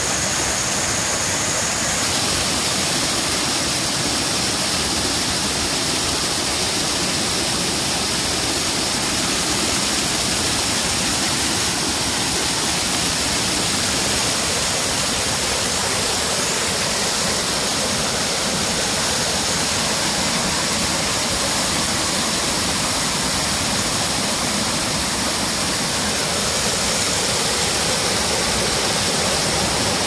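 Small waterfall pouring steadily over a rock ledge into a pool.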